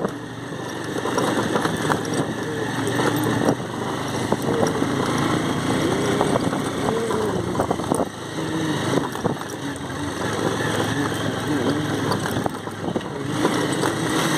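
Motorcycle engine running as the bike is ridden over a rough dirt track, with many short knocks and rattles from the bumps over a constant noisy rush.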